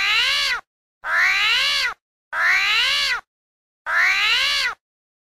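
A whining animal call, each one rising and then falling in pitch and lasting just under a second. The same call plays four times in a row, evenly spaced.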